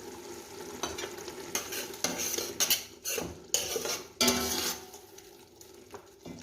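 Onion, eggplant and peppers frying in oil in a pan while being stirred: a run of loud scraping strokes between about one and five seconds in, with the sizzle underneath.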